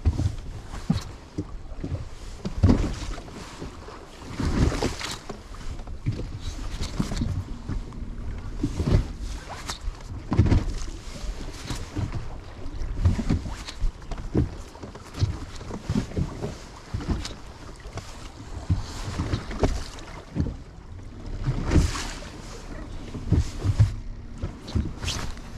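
Choppy waves slapping against a fishing boat's hull in irregular thumps and splashes, with wind buffeting the microphone.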